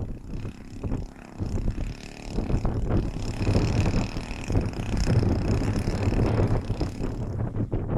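Heavy wind buffeting the microphone over the single-cylinder two-stroke DL-50 gas engine of a large RC aerobatic plane. From about two seconds in the engine's high whine comes through clearly, then sinks back under the wind about a second before the end.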